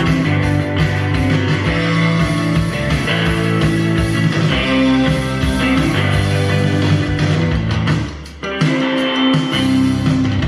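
Guitar-led rock music played through an LG US60TR 5.1-channel soundbar system as an audio demo. It dips briefly about eight seconds in.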